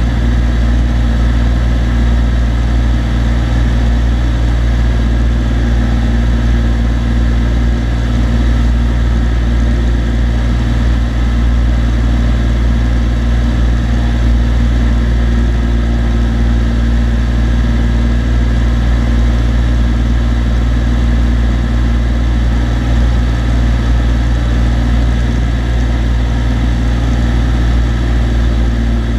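Cessna TU-206D's turbocharged six-cylinder engine and propeller in flight, a steady low drone.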